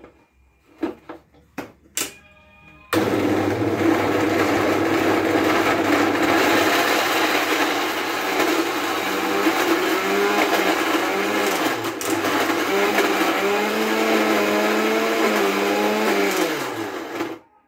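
A few clicks as a small steel jar is set and locked onto an electric mixer grinder, then about three seconds in the motor starts and runs loudly, grinding chopped coconut and green chillies for chutney. Its pitch wavers as the pieces are churned, then falls as it is switched off and winds down near the end.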